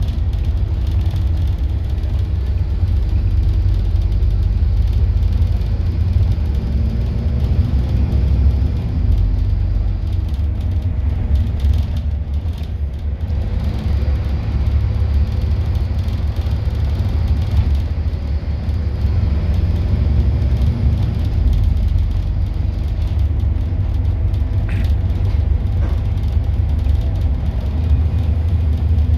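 Interior noise of a Scania N230UD double-decker bus heard from the upper deck: its five-cylinder diesel engine and running gear give a steady low rumble that eases slightly a couple of times.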